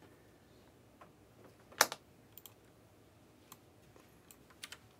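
Faint, scattered key clicks on a computer keyboard, a handful of separate presses rather than steady typing, the loudest about two seconds in and a quick pair near the end.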